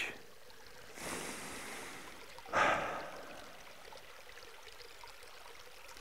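Small snow-bound mountain stream trickling quietly over stones, with two brief louder swells of rushing, splashing water about one and three seconds in.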